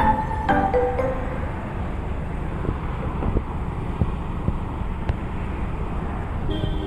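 A few music notes in the first second, then steady, low rumbling outdoor noise. A steady tone comes in near the end.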